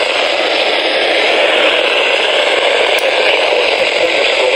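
Weather radio receiver hissing with loud, steady static as the broadcast signal fades out, leaving only noise where the forecast voice was.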